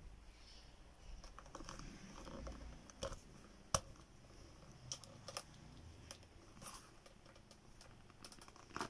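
Faint, irregular light clicks and taps of handling noise, with one sharper click a little under four seconds in.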